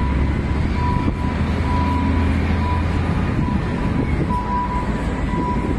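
Steady low mechanical drone under a wash of noise, with a thin high whine that keeps cutting in and out. The low hum is strongest for the first three seconds.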